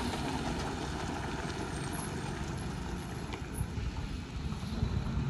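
Heavily loaded multi-axle lorry's diesel engine running as it pulls away round a hill-road bend. It is a steady low rumble with tyre and road noise, easing slightly after a few seconds and growing louder again near the end.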